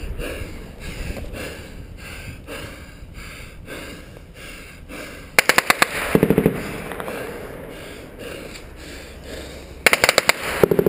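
Automatic gunfire in a firefight: short, rapid bursts about halfway through and again near the end, with scattered fainter shots in between.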